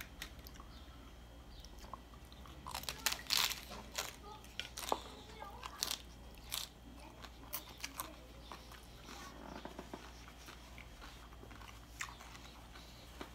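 A crisp fried corn tostada shell crunching as a piece is broken off and bitten, then chewed with scattered crackles. The loudest run of crunches comes about three seconds in.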